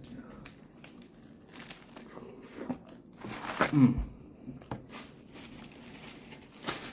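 Paper takeout wrapper crinkling and rustling as a sandwich is handled and folded. There are scattered small rustles and clicks, and one louder, short sound with a falling pitch about three and a half seconds in.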